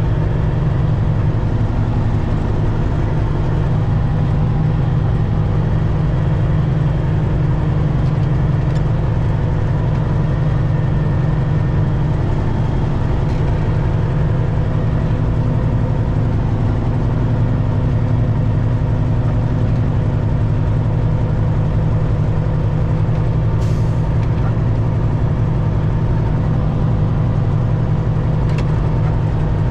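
Detroit diesel engine of a Peterbilt 379 semi truck running steadily in a low, even drone with no change in pitch, with a few faint clicks.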